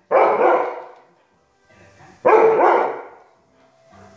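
Siberian husky puppy barking: two drawn-out barks about two seconds apart, each lasting about a second.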